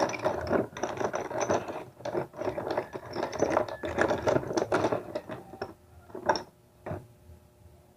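Small metal bicycle hub parts clattering and clicking against each other and a plastic basin as they are handled and dropped in, a busy run of irregular clicks that thins out near the end to two sharper clicks.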